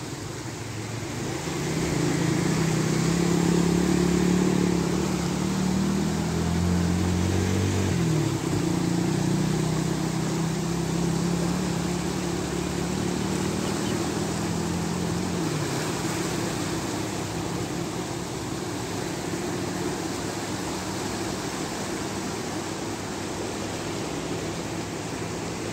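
An engine running nearby, a steady low drone that changes pitch about eight seconds in and fades out around halfway through, over an even rushing noise that fits the flooded Chenab River pouring through the barrage.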